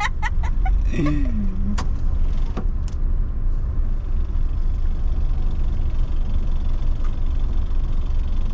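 Steady low rumble of a car driving, heard from inside the cabin. A brief vocal sound comes about a second in, and a few light clicks follow shortly after.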